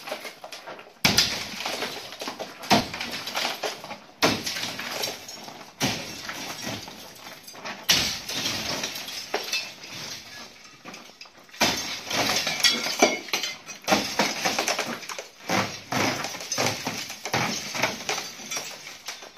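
Burnt plaster and wire-mesh lath being torn down by hand: about a dozen sudden crashes and rattles as chunks rip loose and fall, each tailing off into crunching debris.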